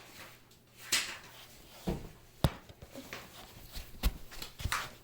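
A handful of separate knocks and taps, about five spread over a few seconds, with a short rustle after the first, over a faint steady hum.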